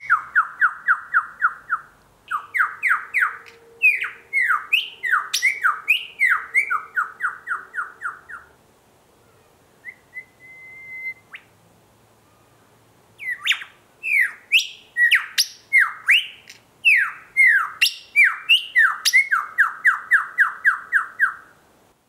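Superb lyrebird singing: loud runs of rapid, repeated notes, several a second, many of them falling steeply in pitch. The song breaks off about eight seconds in for roughly four seconds, with only a short thin whistle in the gap, then resumes in the same way.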